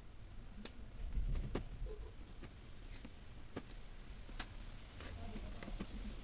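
Small irregular clicks and taps, about eight or nine of them, from tools and parts being handled while a Xiaomi Mi 5S smartphone is taken apart for a battery replacement.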